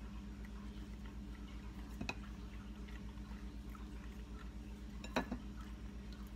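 Banana being sliced by hand, with two short knocks as slices are cut and dropped onto a plate: one about two seconds in and a louder one about five seconds in. A steady low hum runs underneath.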